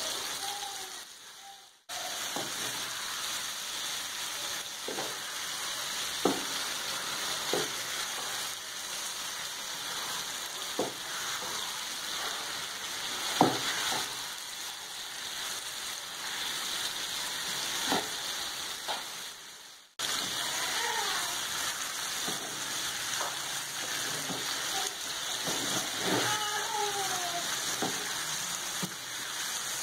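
Chicken livers sizzling on a flat tawa in oil and the juices the livers release. A wooden spatula stirs them, with occasional sharp clicks as it strikes the pan. The sizzle breaks off briefly twice.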